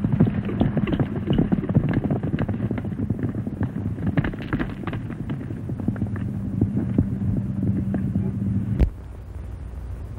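Horses galloping over dirt, a rapid, irregular clatter of many hoofbeats over a steady low hum. Near the end a single sharp crack, after which the hum and the hoofbeats fall away and it quietens.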